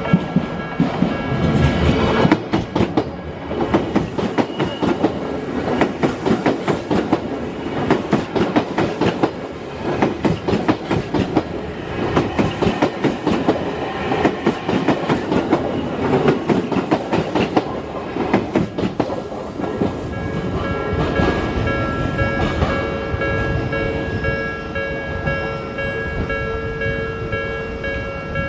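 Odakyu electric train running over a level crossing, its wheels clattering in dense rapid clicks over the rail joints for about twenty seconds before settling into a steadier rumble. The crossing's warning alarm sounds throughout as a set of steady ringing tones.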